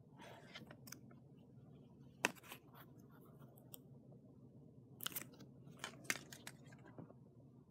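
Fingers handling a small plush toy and rubbing its printed care tag: faint scratchy rustles and crinkles with scattered sharp clicks, the sharpest about two seconds in and a cluster of them past the middle.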